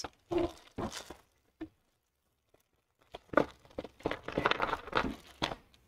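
Clear plastic packaging crinkling and rustling as hands dig sewing-machine presser feet out of a bag. A few short rustles come first, then a longer stretch of crinkling about three seconds in.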